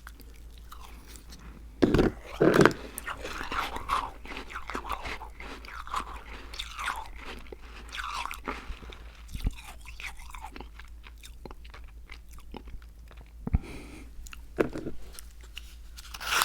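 Close-miked biting and chewing of crunchy food: two loud crunching bites about two seconds in, then crackly chewing, with a few more bites near the end.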